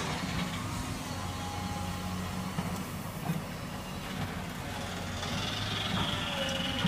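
Steady low engine hum, with a faint high whine coming in near the end.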